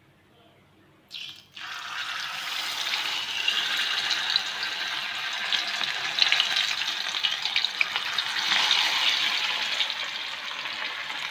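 Marinated fish pieces going into hot oil in a pan and sizzling, with a dense crackling hiss that starts suddenly about a second and a half in and keeps going.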